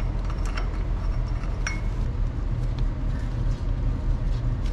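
A steady low machine hum, with a few light metallic clinks of a wrench working on the bolts of an old propeller-shaft stuffing box; the clearest clink, a short ringing one, comes just under two seconds in.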